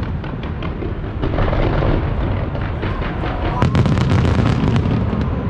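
Aerial fireworks shells bursting in quick succession: a continuous low rumble of booms overlaid with rapid crackling, the densest bangs and crackle coming about three and a half seconds in.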